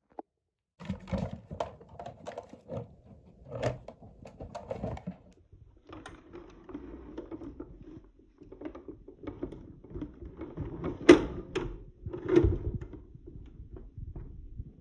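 Plastic toy figures and a toy vehicle being handled and set down: a run of irregular clicks and knocks, with a louder knock about eleven seconds in and another a second later.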